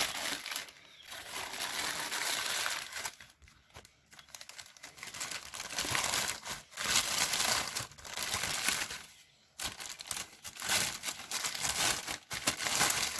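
Packaging being handled during an unboxing: crinkling and rustling in irregular stretches of a second or two, with short pauses between them.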